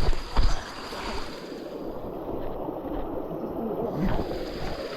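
Rushing water of a rain-swollen creek, heard as a steady wash of noise, with a thump about half a second in.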